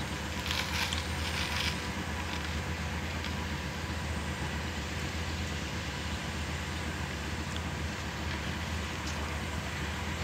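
An excavator engine running steadily, a low hum with a constant tone. In the first two seconds there are a few short scrapes and rubs from hand work on the track motor cover.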